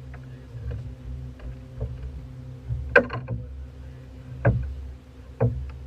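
Steady low hum aboard a fishing boat, with a few sharp knocks on the boat's deck. The loudest knock comes about three seconds in.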